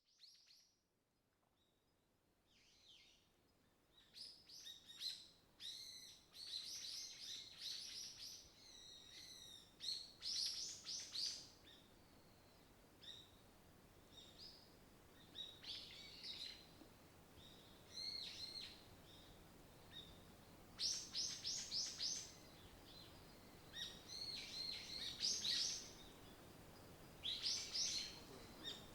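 Wild songbirds chirping and singing in short, repeated high-pitched phrases and trills. The song starts about four seconds in, after a brief near-silent moment.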